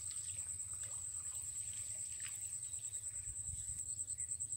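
Insect chirring: a steady high-pitched trill with a rapid, even pulse.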